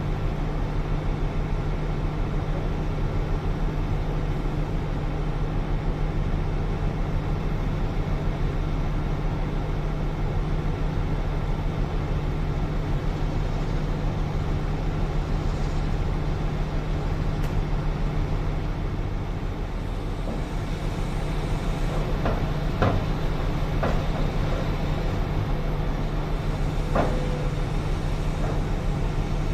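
Heavy diesel engines of a large mining excavator and haul truck running steadily. Several sharp knocks come in the second half.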